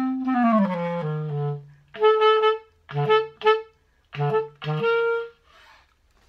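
Clarinet being played to test it after repadding and regulation: a falling run down into its low register, then a handful of short notes, ending on a longer held note about five seconds in.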